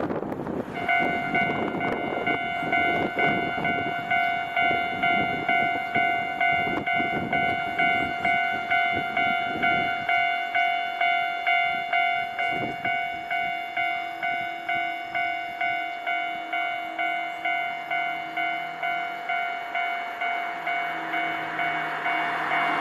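Japanese railway level-crossing warning bell ringing, an electronic ding repeating about twice a second, starting just after the beginning. A rushing noise sits under it for the first ten seconds or so, then dies away, leaving a faint low hum.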